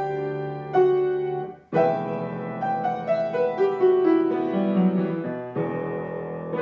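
Solo piano playing: two struck chords, then a brief break about a second and a half in, after which a new chord rings under a quicker run of single notes, and another chord is struck near the end.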